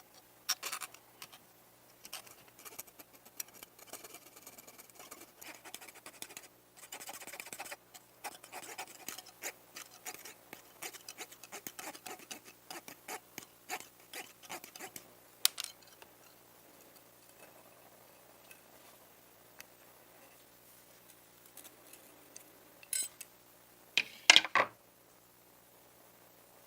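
Scratching and light clicking of small toy-car parts being handled and worked, busy at first and then sparser, with a few sharper, louder clicks near the end.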